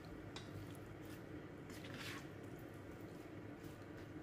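Faint, soft sounds of beef teriyaki and green onions being stirred in a frying pan, with a light click about half a second in and a short swish about two seconds in.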